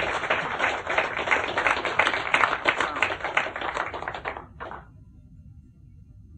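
Audience applauding, a dense patter of clapping that dies away about four and a half seconds in, with one last clap just after.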